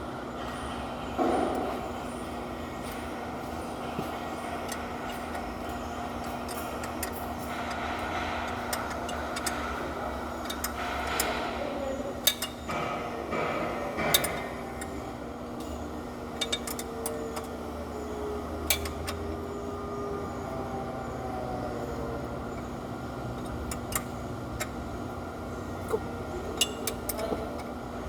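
Steady mechanical hum with scattered sharp metallic clinks, like hand tools knocking against engine parts, and faint voices in the background.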